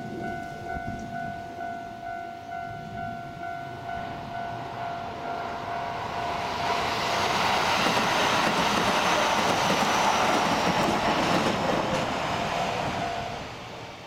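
Level-crossing alarm ringing a steady, rapidly repeating tone while a Keikyu electric train passes. The train's wheel and rail noise swells to the loudest part midway and then fades. The alarm stops shortly before the end.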